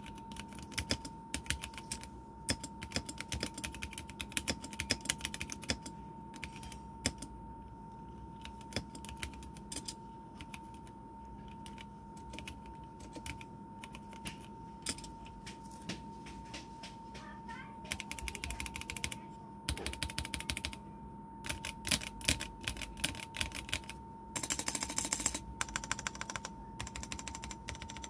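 Typing on a home-built 60% mechanical keyboard with Kailh Red switches, PBT DSA keycaps and a clear acrylic case: irregular bursts of key clicks with short pauses, and a dense run of rapid keystrokes near the end.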